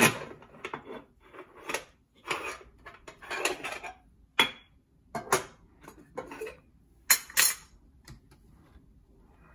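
Aluminium moka pot being handled and twisted apart: metal parts clinking and scraping against each other, with sharp clanks at the start, about four and a half seconds in, and about seven seconds in.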